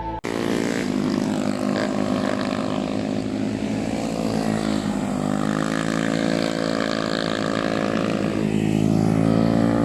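Motorcycle engine running, its pitch dipping about halfway through and then rising steadily toward the end.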